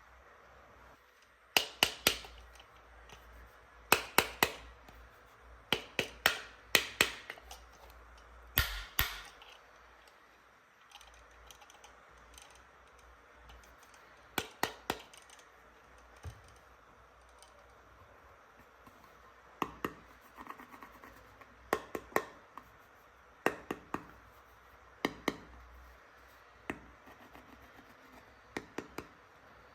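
Hard plastic toy pieces clicking and tapping as they are handled, in short clusters of two to four sharp clicks, with quiet pauses between clusters.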